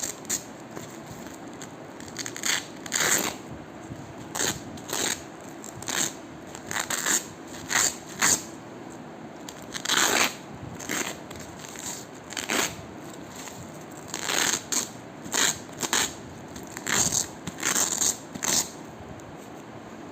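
Hook-and-loop (Velcro) strips being pulled apart in short tearing rips, one after another, roughly one a second at an uneven pace.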